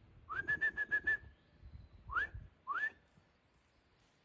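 A bird's whistled call. It slides up into a quick run of four or five repeated notes at the same pitch, then gives two single upward-sliding whistles, over a low outdoor rumble.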